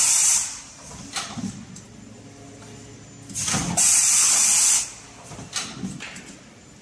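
Pneumatic cup-sealing machine cycling: its sealing heads clunk and knock as they move, and compressed air vents in a loud hiss lasting about a second, once at the start and again about four seconds later.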